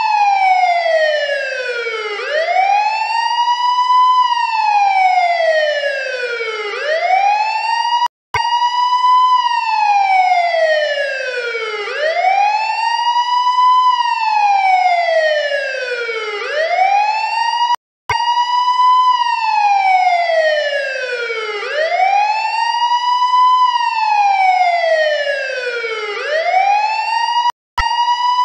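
Electronic wailing siren sounding the fire alarm for an evacuation drill. Its pitch rises over about two seconds and falls over about two and a half, again and again. It cuts out for a split second with a click three times, roughly every ten seconds.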